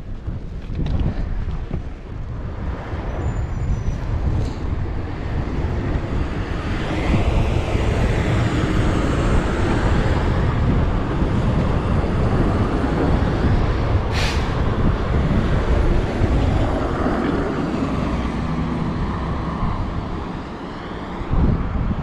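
Snowplow dump truck passing close by: a loud, steady truck noise that builds and holds for much of the time, with a brief sharp hiss about two-thirds of the way through.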